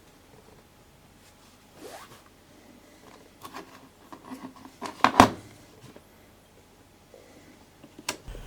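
Handling sounds of camcorder batteries and a battery charger: rustling and scattered short plastic clicks, the sharpest click about five seconds in and another near the end, as a battery is swapped on the charger.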